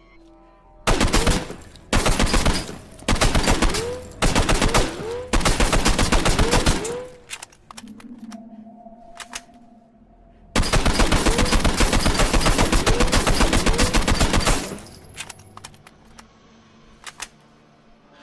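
Custom Colt Model 933 assault rifle firing full-auto as a sound effect. First come five short bursts about a second apart, then after a pause one long burst of about four seconds, followed by a few sharp single clicks.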